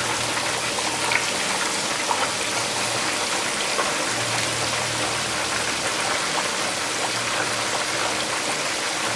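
Whole sheepshead frying in hot oil in a wok: a steady sizzle with scattered small pops and crackles.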